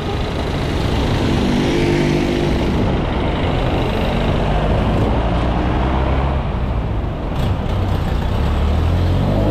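City street traffic: jeepneys and motorcycles passing with engines running, over a steady low road rumble. An engine picks up speed about two seconds in, and another near the end.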